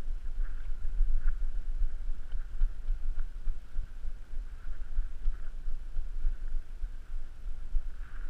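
Steady low rumble of wind and movement on the microphone of a moving, body-worn camera, with faint scattered ticks higher up.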